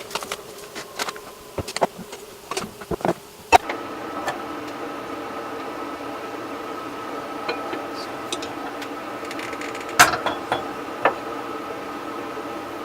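A run of clicks and knocks ending in a loud knock about three and a half seconds in. From then on a steady buzzing hum like a small electric motor or appliance, with another sharp click about ten seconds in.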